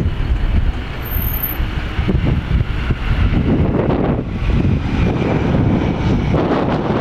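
Boeing 757-200's twin Pratt & Whitney PW2037 turbofan engines at takeoff power as the jet climbs out just after liftoff: a loud, steady, deep rumble, with a faint high whine coming in about halfway through.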